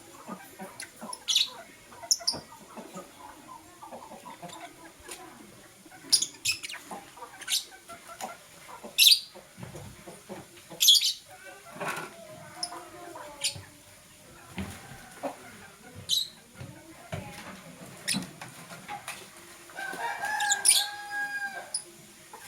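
Pet lovebirds chirping: short, sharp, high chirps at irregular intervals, with a longer call about twenty seconds in.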